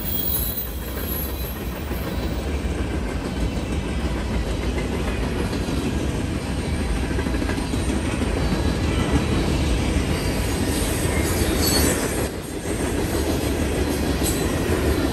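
Freight cars of a long mixed freight train rolling past close by: a steady heavy rumble of steel wheels on rail, with a few brief high wheel squeals in the last few seconds.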